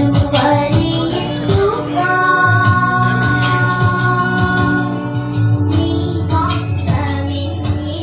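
Two young girls singing a Christian song into microphones over musical accompaniment with a steady beat. They hold one long note through the middle.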